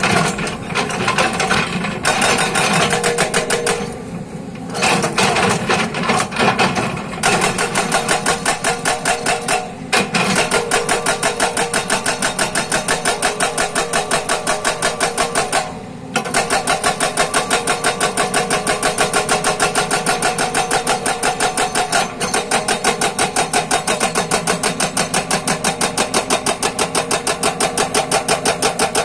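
JCB excavator's hydraulic rock breaker hammering its chisel into rock: a fast, even pounding of several blows a second, over the excavator's running engine. The hammering stops briefly three times and starts again.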